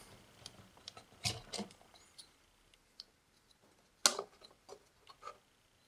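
A few scattered clicks and taps of test-lead plugs being pulled from and pushed into a multimeter's input jacks, the sharpest click about four seconds in.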